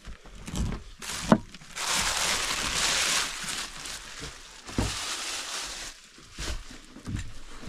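Food frying in a pan, its sizzle swelling for a couple of seconds after a sharp knock about a second in, then fading, with a few more utensil knocks.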